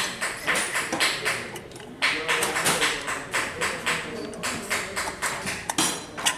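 Rapid, even tapping, about four sharp strikes a second, with a short break about two seconds in and a single sharp click near the end.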